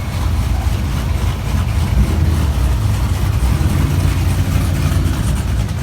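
Cammed V8 engine idling with a deep, uneven rumble.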